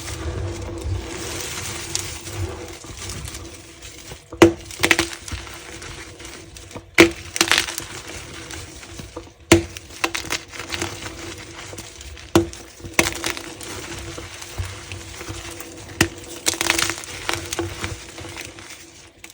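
Something brittle being crushed and snapped: a steady crackling crunch, broken by five sharp cracks a few seconds apart.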